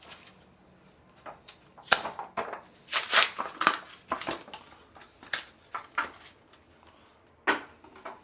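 A run of sharp clicks, scrapes and knocks of hard parts being handled, loudest about two to three seconds in, with one last knock near the end.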